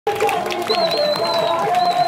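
Music: a sustained, slightly wavering melody over a thin high held tone, with voices beneath.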